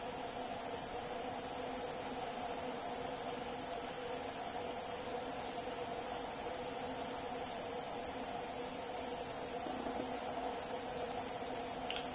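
Steady, high-pitched chorus of forest insects droning without a break, with a lower steady hum beneath it.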